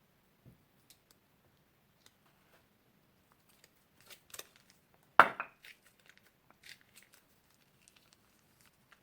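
Crunchy slime being squeezed and pressed, giving scattered small crackles and pops, with a cluster about four seconds in and one loud crackling burst a little past five seconds.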